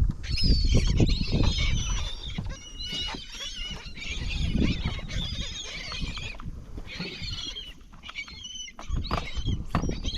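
A flock of seabirds calling over a school of fish, many short rising and falling calls overlapping at once, over a low rumble.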